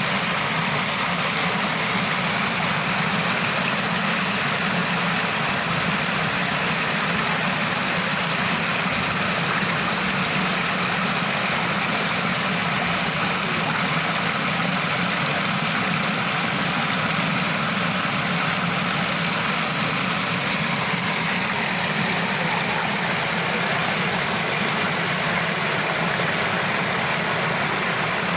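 Small waterfall: water falling and splashing in a steady, unbroken rush.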